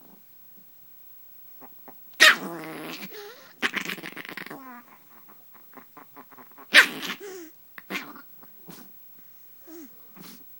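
Chihuahua growling in bursts, with two loud barks, about two seconds in and again about seven seconds in, and shorter growls between. The dog is guarding its spot in the bed from a prodding hand.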